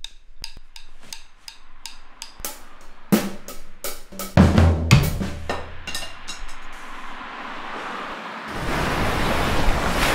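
A drum kit played with sticks: scattered, irregular snare, rimshot and cymbal hits with a few bass drum thumps, dying away after about six and a half seconds. About eight and a half seconds in, the rush of ocean surf rises in.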